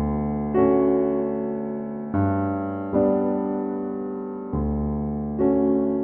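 Background piano music: slow chords, each struck and left to ring, fading before the next one comes.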